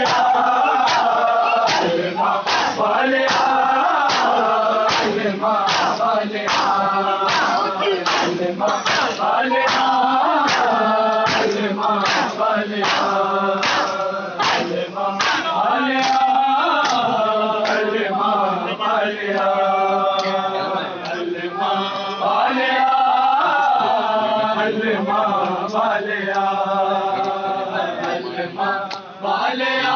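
Crowd of men chanting a nauha in unison while beating their chests in matam, the open-hand slaps landing as a steady beat in time with the chant. The slaps thin out a little past halfway while the chanting carries on.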